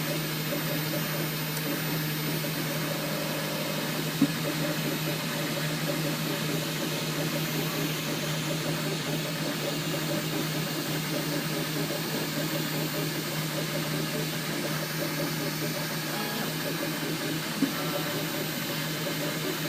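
3D printer running with a steady machine hum and whir, broken by a short click about four seconds in and another near the end.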